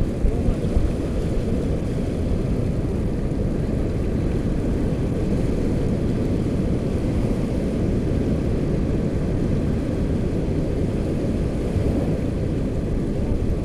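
Steady low rumble of wind on the microphone over the wash of shallow surf.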